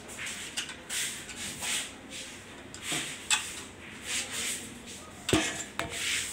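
Small screwdriver working the screws of a switched wall socket's faceplate to take the socket off: short, repeated metal scraping strokes, with a sharp click about five seconds in.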